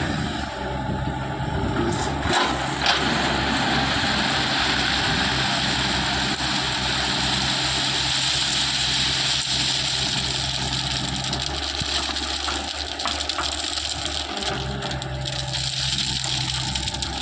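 Diesel engine of a heavy construction machine running steadily, with a couple of short knocks two to three seconds in.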